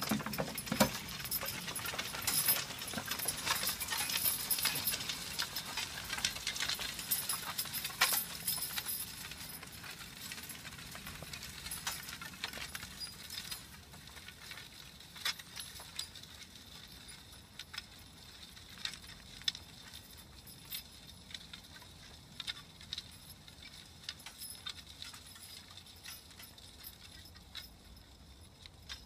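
Horse-drawn spring-tooth harrow clinking and rattling as a team of two draft horses pulls it through tilled soil, with the harness jingling. It is loudest about the first ten seconds, while the team is close, then fades as they move away.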